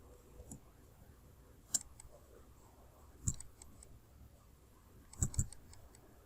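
A few scattered computer mouse clicks, with a quick pair of clicks about five seconds in, over faint room noise.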